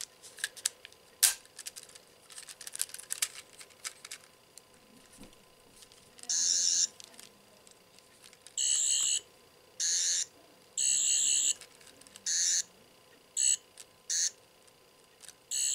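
Doctor Who sonic screwdriver toy: a few seconds of plastic clicks and rattles as it is handled, then its electronic buzzing sound effect in about eight short warbling bursts, each under a second.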